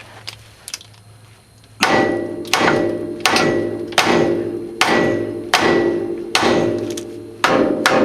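Hammer striking the steel steering knuckle and ball joint of a 1997 Honda Civic's front suspension, about eight blows with a metallic ring after each, to shock the joint loose. The blows start about two seconds in.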